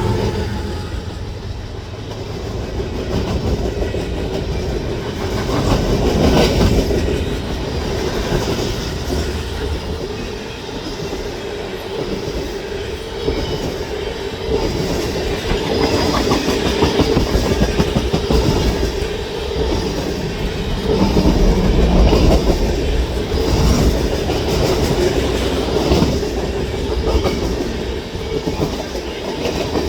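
Long CN manifest freight train rolling past at close range, its steel wheels clacking over the rail joints over a continuous rumble.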